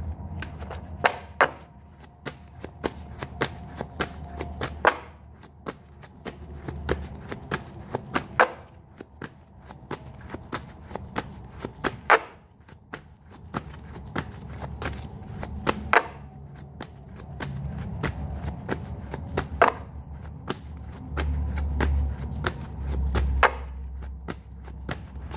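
A deck of tarot cards being shuffled by hand: a run of light irregular card clicks, with a sharp louder snap or tap every few seconds.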